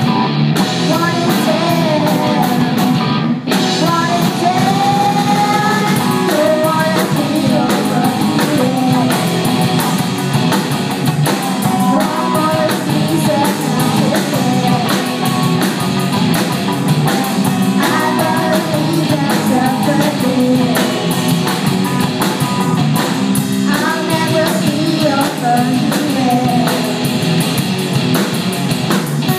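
Live rock band playing: sung vocals over electric guitar and drum kit, loud and continuous.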